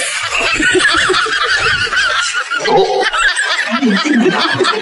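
Continuous high cackling laughter, rapid and wavering, laid over the scene as a comic laugh track.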